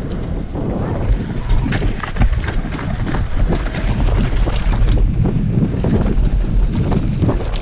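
Downhill mountain bike being ridden fast over a rough dirt track: a steady rush of wind on the microphone, with the bike rattling and knocking repeatedly over bumps and rocks.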